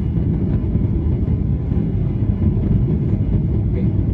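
Steady low cabin rumble of a Boeing 737-800 airliner, engine and airflow noise heard from inside the economy cabin, even in level throughout.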